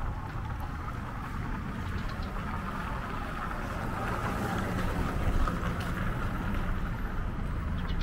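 City street ambience: steady traffic noise that swells to its loudest about halfway through, over a low rumble.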